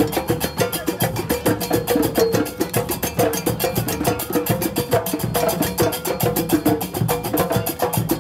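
Djembe hand drums played together live, a fast, even stream of strokes in an African-style rhythm.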